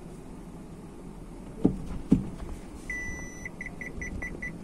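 Two clunks as the Baleno is shifted into reverse. About three seconds in, the reverse parking-sensor buzzer sounds a steady high beep, then changes to rapid beeping about six times a second, which signals an obstacle close behind the car. A low hum of the idling car runs underneath.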